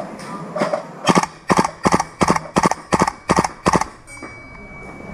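Airsoft gun firing about eight single shots at roughly three a second. A steady high tone follows near the end.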